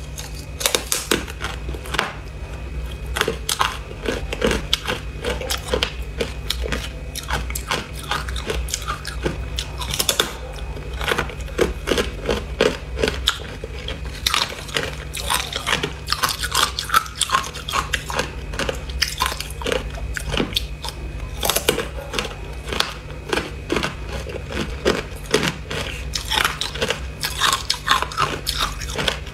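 Hard ice sticks crunched and chewed, with many irregular sharp cracks as pieces are bitten off and ground between the teeth, some of the ice coated in matcha powder.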